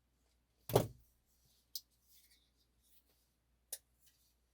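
A few sharp clicks of a folding knife's blade being worked open and shut, the loudest about a second in with a short ring after it, as the freshly tightened pivot is checked for blade play.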